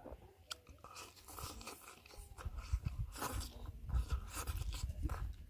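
A person chewing and crunching food close to the microphone, with wet clicks and crackles, getting louder after about two seconds.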